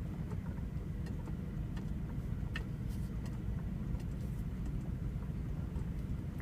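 Car's steady low rumble of engine and road noise inside the cabin, with a few faint clicks.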